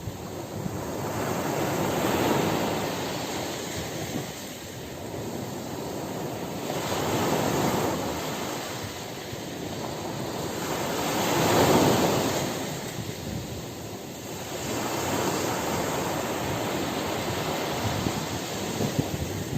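Sea waves washing ashore, the surf swelling and falling back about every four to five seconds.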